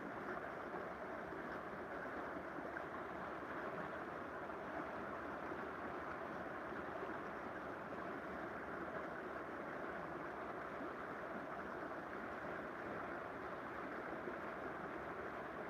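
Steady rushing of flowing river water, an even, unbroken wash of sound.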